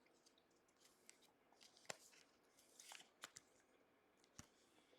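Near silence, broken by a few faint ticks and rustles from trading cards being handled.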